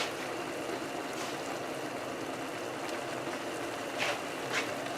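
Food in a pan on the stove sizzling with a steady hiss, with a faint click or two of a utensil about four seconds in.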